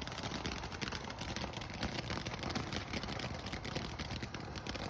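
Firework crackling: a dense, rapid stream of small pops and snaps that keeps going without a break.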